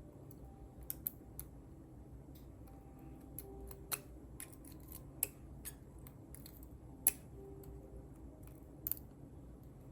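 Lock pick working the pins of a five-pin pin-tumbler lock: irregular small clicks at uneven gaps, the loudest about seven seconds in.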